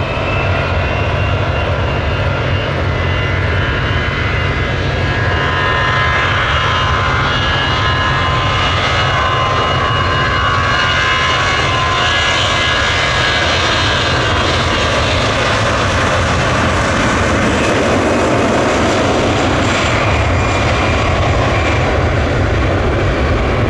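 Jet airliner's engines running loudly: a steady rush with high whining tones above it.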